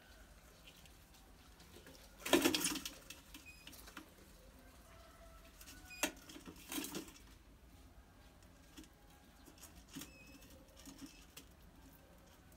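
A clatter about two seconds in as a rat tips the pot's glass lid and drops into the stainless steel pot. Scattered taps and short scrabbles follow as it moves on the metal inside.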